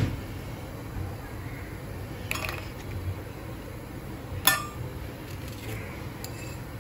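Three light clinks and taps as Oreo biscuits are split and their cream scraped off with a knife, tapping against a steel mixer jar and glass bowls. The sharpest clink comes about four and a half seconds in.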